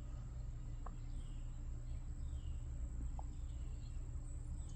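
Steady low hum with faint chirping, short falling calls repeating every half second or so.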